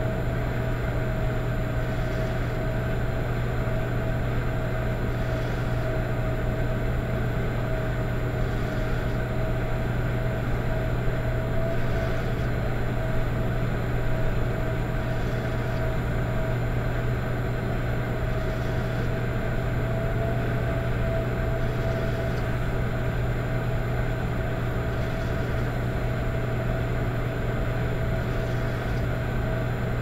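Electric fireplace running with a steady low hum and a constant higher tone over it, plus a soft rhythmic whoosh about every three seconds, like soft snoring.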